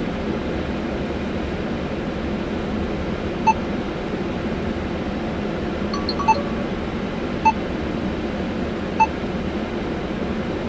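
Four short touchscreen beeps from an Android car head unit as its screen is tapped, over the steady hum of the Volkswagen idling at about 750 rpm.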